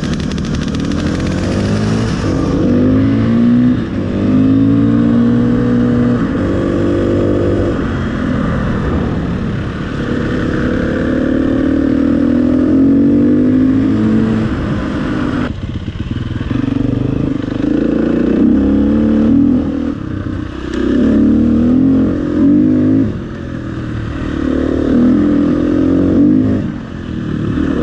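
KTM EXC-F 250 Six Days' single-cylinder four-stroke engine under way close to the microphone, rising in pitch through the gears and dropping at each shift. In the second half come shorter, choppier bursts of throttle.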